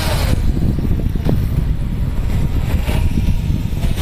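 Wind buffeting the microphone in a steady low rumble, with the faint whine of a toy RC boat's small metal-can electric motor falling in pitch near the start as the boat speeds away across the water.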